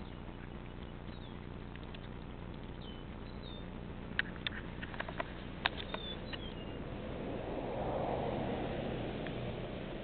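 A cat scuffling with a frog in the grass: a quick run of sharp clicks and taps about four to six seconds in, then a soft rustling swell, over a steady low hum. A few faint, short high chirps sound in the first few seconds.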